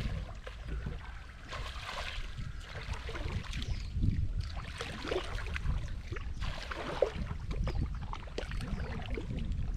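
River water sloshing and splashing around people wading waist-deep, with irregular small splashes over a constant low rumble of wind on the microphone.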